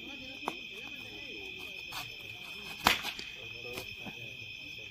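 Steady high chirring of night insects, with a sharp crack about half a second in, typical of a bat striking a plastic cricket ball. A louder sharp knock comes just before three seconds.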